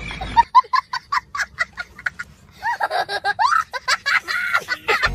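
Laughter: a quick run of short giggling pulses for about two seconds, then longer voiced laughing.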